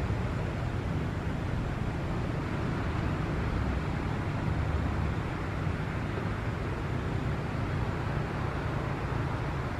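ATR twin-turboprop airliner at take-off power, its engines and propellers giving a steady low drone with a hiss above it as it runs down the runway and lifts off.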